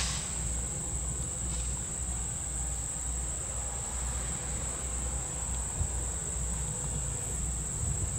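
Steady high-pitched insect buzz over the low, uneven rumble of a passenger train rolling slowly away.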